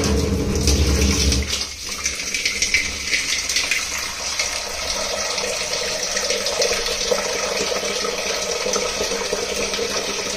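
Water running steadily into a bowl as tamarind is washed before soaking, with a heavier gush in the first second and a half.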